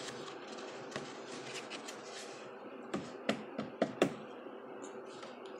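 Hands handling a thick cardboard box and the packaging inside it: low handling noise, with a cluster of light knocks and taps about three to four seconds in.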